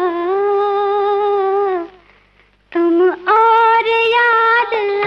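Ghazal melody with a voice singing wordless long held notes, bending into each note with small glides. The line breaks off for about a second near the middle, then resumes.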